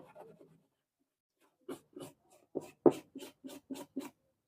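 Brush scrubbing a circuit board being cleaned with thinner: a run of about ten short scratchy strokes, about four a second, starting a little under two seconds in.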